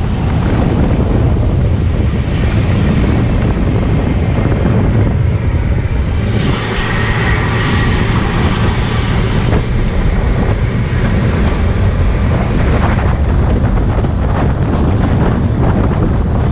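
EZ Pack rear-loader garbage truck on the move, heard from its rear riding step: a steady engine rumble with road and wind noise over the microphone, growing louder for a few seconds midway.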